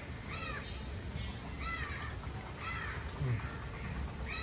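A crow cawing, about four harsh caws roughly a second apart, over a low steady rumble.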